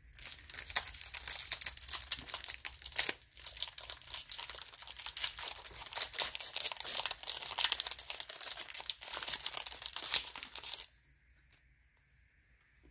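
Trading card pack wrapper being torn open and crinkled: a dense run of crackling that stops suddenly about two seconds before the end.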